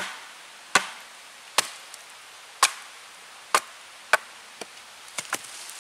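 A wooden baton striking the back of a hatchet head, driving the blade down into the end of a young beech log to split it. There are six sharp knocks about a second apart, each fading quickly, then a few lighter taps near the end.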